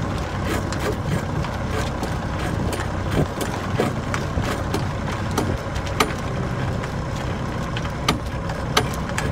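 A boat engine running steadily, with scattered sharp clicks and knocks over it.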